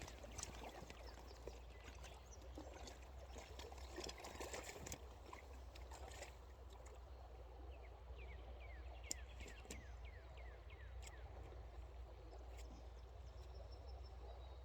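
Faint steady flow of river water. Midway through, a run of about a dozen short, high, falling notes, about two a second, with a few sharp clicks.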